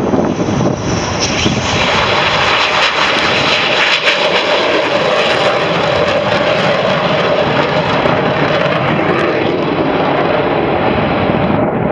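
Twin-engine F-15 fighter jets taking off and climbing away, their engines making a loud, steady jet noise with a held drone under the rush.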